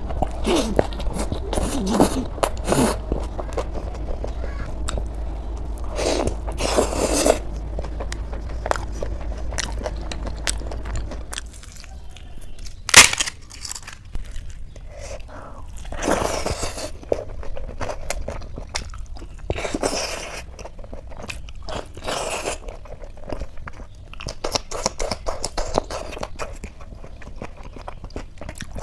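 Close-miked ASMR eating: a person biting and chewing with moist mouth sounds and repeated crisp crunches. About halfway through comes one sharp, loud crack, the loudest sound, as crisp papad is bitten or broken.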